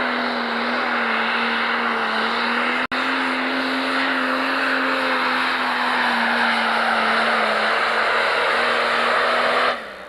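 Pro Stock pulling tractor's turbocharged diesel engine running flat out under full load as it drags the sled, a steady high engine note that sags slightly in pitch late on. It drops out for an instant about three seconds in and stops abruptly near the end.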